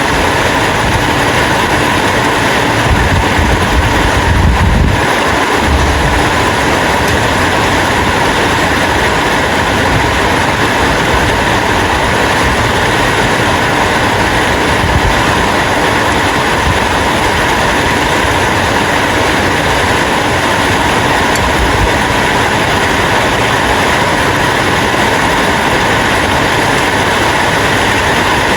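Steady rain, an even hiss, with a brief low rumble about three to five seconds in.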